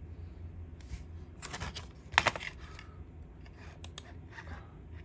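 Small clicks and scrapes of a Zippo lighter being handled and turned over, with the sharpest click about two seconds in.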